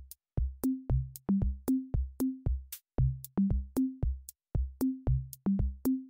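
Background music: an electronic drum-machine beat of low pitched drum hits, about three a second, each group climbing step by step in pitch, with sharp ticks above.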